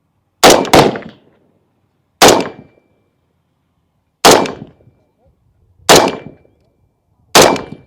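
PSA JAKL long-stroke gas piston rifle firing six shots. The first two come in quick succession, then four single shots follow about a second and a half to two seconds apart, each sharp crack dying away quickly.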